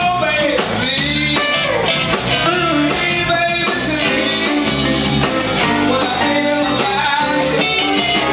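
Live blues-rock band playing: electric guitars, electric bass and a drum kit.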